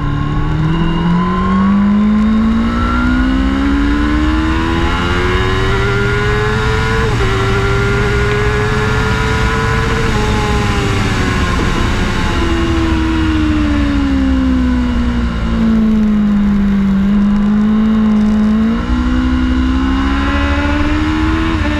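Kawasaki ZX-10R's inline-four engine heard onboard at speed. It revs rising through the first seven seconds, breaks with a sharp drop in pitch at a gear change, then falls steadily in pitch as the bike slows. It steps up and revs rising again near the end.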